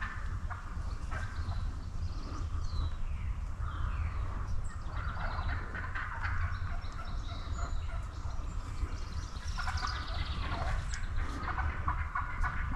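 Wild turkeys gobbling in rapid rattling bursts, about five seconds in and again around ten seconds in, over a steady low rumble.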